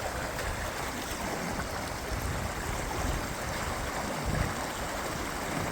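Floodwater rushing steadily through a gap where the river has burst its bank.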